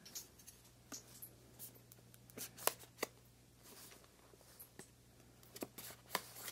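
Knife blade cutting the seal on a cardboard smartphone box: faint scraping with scattered sharp ticks, the sharpest about two and a half to three seconds in and a few more near the end.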